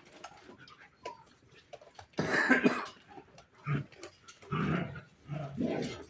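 Animal noises: several short, rough bursts of sound. The loudest comes about two seconds in, and two more follow near the end.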